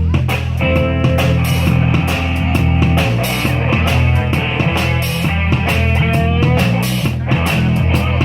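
Live band playing rock music: a drum kit keeps a steady beat under guitar and a lead melody of sustained notes that bend in pitch.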